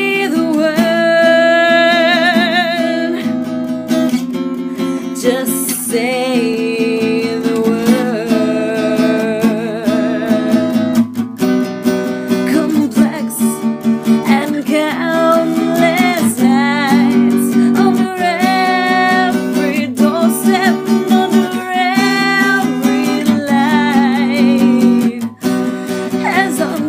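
A woman singing with vibrato over a strummed acoustic guitar.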